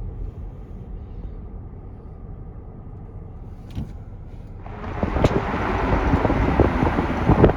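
Low, steady rumble of a car, then about two-thirds of the way in loud gusty wind buffeting the microphone suddenly takes over.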